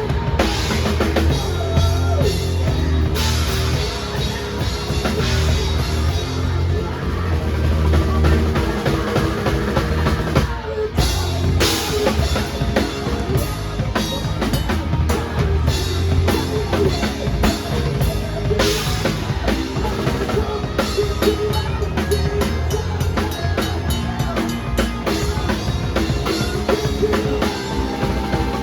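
Drum kit played in a rock song, bass drum and snare over a full band backing with pitched instruments and a steady bass line. The music stops for a split second about ten seconds in, then carries on.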